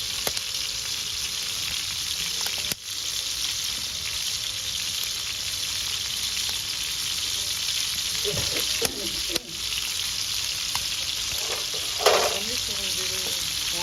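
Food sizzling steadily in hot oil, frying over a wood fire, with a brief faint voice near the end.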